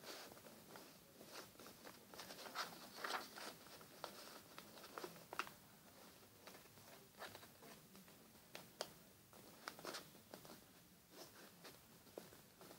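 Faint rustling and crackling of a sheet of paper being folded and creased by hand: short, scattered crackles, busiest about three seconds in.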